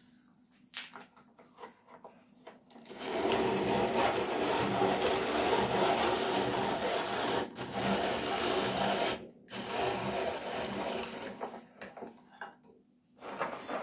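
Walnuts being ground in a hand-cranked rotary drum grater: a few light clicks, then a steady rhythmic grinding rattle from about three seconds in as the handle is turned. It breaks off briefly past the middle, carries on more quietly, and stops near the end.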